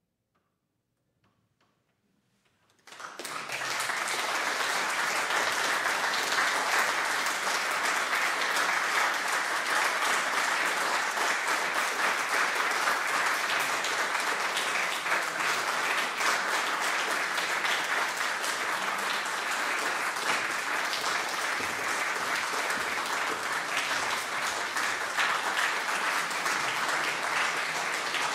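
Audience applauding. The clapping starts suddenly about three seconds in, after near silence, and then continues steadily.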